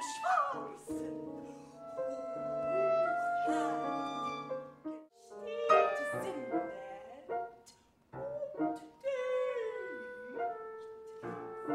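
Chamber-ensemble theatre music with bowed strings and piano holding and moving between sustained notes, with a voice sliding in pitch at times; the music briefly thins out about five seconds in and again about eight seconds in.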